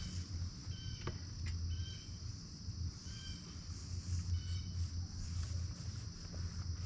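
Outdoor ambience: a steady, high-pitched insect drone, with short bird chirps now and then, over a low, steady rumble. A single sharp click sounds about a second in.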